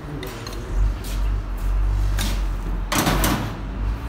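Metal clicks and clinks of a wrench and parts being worked at the shaft end of a diesel injection pump, with a longer rattling scrape about three seconds in, over a steady low rumble.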